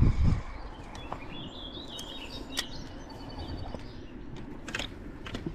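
Birds chirping and calling in short, high-pitched phrases over a steady outdoor background. A brief low rumble at the very start, and a few sharp clicks.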